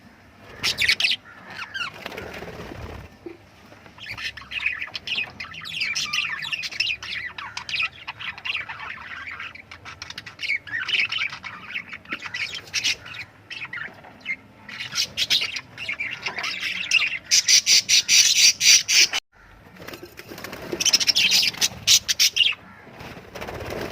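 Lovebirds chirping continuously in quick, high, overlapping calls. About three-quarters of the way in comes the loudest part, a fast run of sharp chirps that stops abruptly before the chirping resumes.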